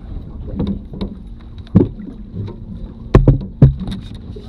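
Knocks and thumps on a fishing boat's deck: one about two seconds in, then three loud ones close together near the end, over a steady wind-and-water noise.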